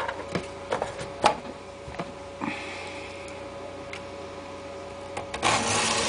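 Clicks and knocks as a four-sided diamond sharpening block is turned and set back in its box. About five seconds in, a knife blade is drawn across the diamond plate with a rasping scrape.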